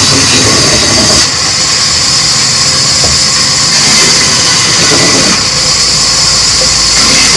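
A loud, steady machine running, with a strong high hiss over a rough lower rumble.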